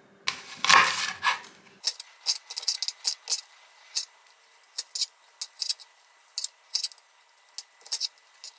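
Chef's knife chopping a quarter onion on a cutting board: a run of irregular, sharp knife taps against the board, after a brief rustle at the start.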